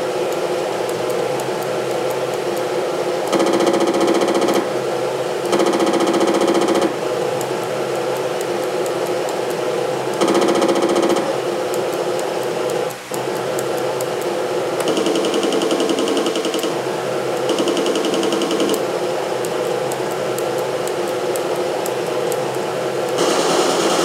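Sherman tank engine sound effect played through the speaker of an Armortek RC tank sound system: a steady engine running with a rapid firing pulse, stepping up into louder stretches of one to two seconds several times, as when the throttle is worked from the radio transmitter.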